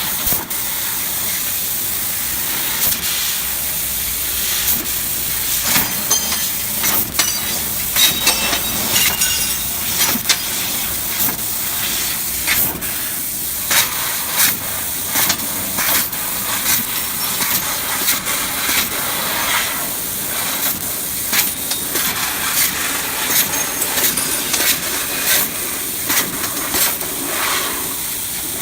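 A 1530FI CNC fiber laser cutter cutting 1 mm stainless steel sheet: a steady high hiss from the cutting head, broken by sharp clicks every second or so.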